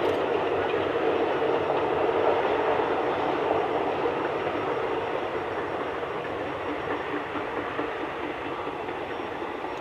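Steam-hauled passenger train, led by a class 19D steam locomotive, running in the distance: a steady rumble of the train on the rails that slowly fades as it draws away.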